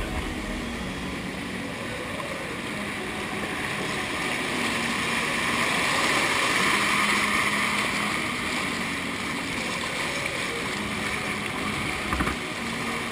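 Whitewater rushing around a kayak as it runs a small rocky rapid, growing louder midway and easing off as the boat reaches calmer water, with a paddle splash near the end.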